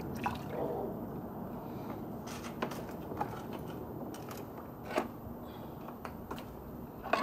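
Vinegar-and-water soak sloshing and dripping as a cast iron skillet is lifted out of it in a plastic crate, with a few sharp clicks and knocks.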